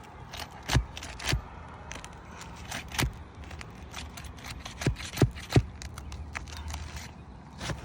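Asphalt roof shingles being pried up to break their sealant bond: irregular sharp snaps, cracks and scrapes as the sealed tabs come apart, the loudest a cluster of snaps about five seconds in, over a low steady rumble.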